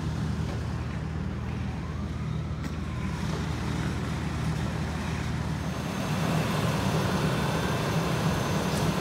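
Steady low drone of vehicle engines running at idle, growing louder about six seconds in, with a faint wavering tone in the first few seconds.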